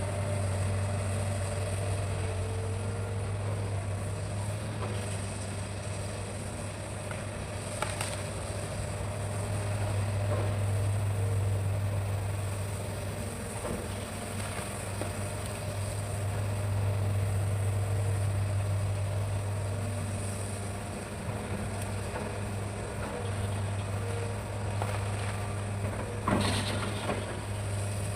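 Hitachi hydraulic excavator's diesel engine running steadily with a deep hum, swelling louder twice as it works. A sharp knock sounds about eight seconds in and a louder crack near the end.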